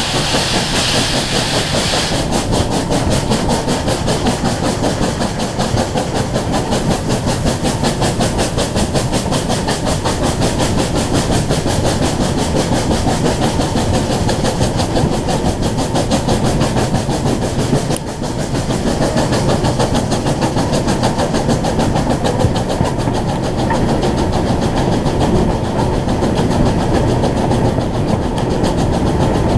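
Steam-hauled train running steadily, heard from aboard: the carriage wheels clatter over the rails with a fast, even rhythm. A hiss stops about two seconds in.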